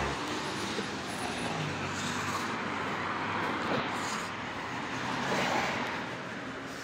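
Road traffic noise along a city street: a steady hum of passing cars, swelling briefly about five seconds in.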